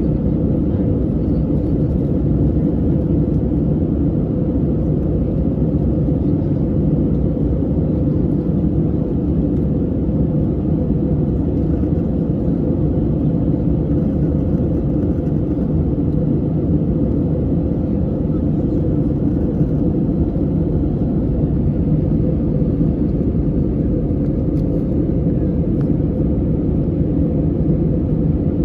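Steady cabin noise inside an Airbus A320neo in flight: a low, even rumble of the engines and the airflow over the fuselage, with a faint steady hum.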